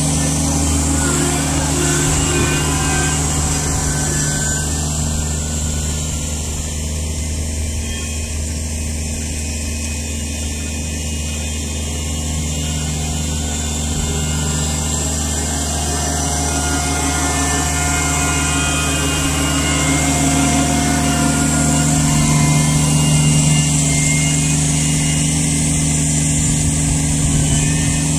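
Kubota BX23S compact tractor's three-cylinder diesel engine running at a steady speed as the tractor drives back and forth. It dips a little in the middle and is loudest about three-quarters of the way through.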